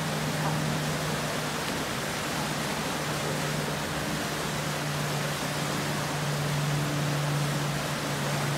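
Fast whitewater rapids rushing in a steady, even roar, with a faint steady low hum underneath.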